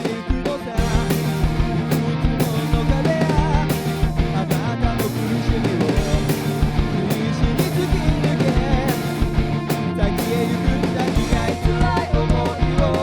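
Rock band music with a drum kit and guitar, and a wavering melodic line over a steady beat and sustained bass notes.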